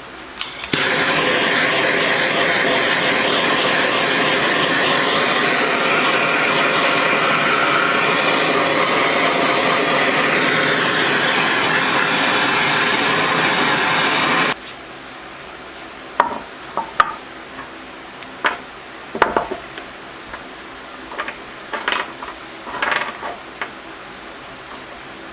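Propane torch burning with a steady loud hiss: it comes on abruptly about a second in and cuts off suddenly a little past halfway. After it, a few light knocks and clinks.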